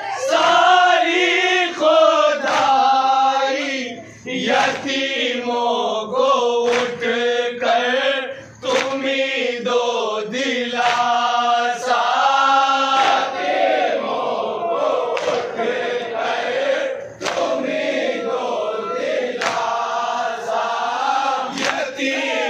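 A group of men chanting a noha, a Shia mourning lament, together in a loud, steady chant, with a sharp beat about every two seconds.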